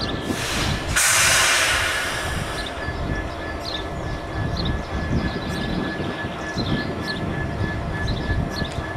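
Class 66 diesel locomotive standing with a train of hopper wagons, its engine running low under a steady high-pitched tone. About a second in, a loud hiss of air lasts a second or so. Small birds chirp in the background.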